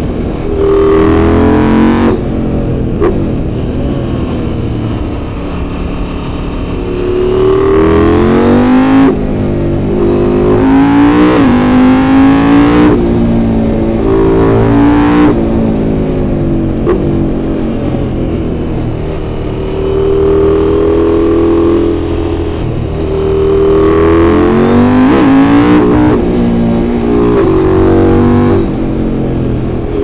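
KTM 890 SMT's 889 cc LC8c parallel-twin engine under way, its pitch climbing and easing back again and again as the throttle is opened and rolled off through a run of bends, in second and third gear.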